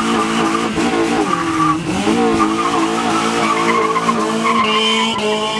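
Car doing a burnout: the engine is held at high revs while the tires squeal and skid, the revs dipping briefly about two seconds in and climbing again.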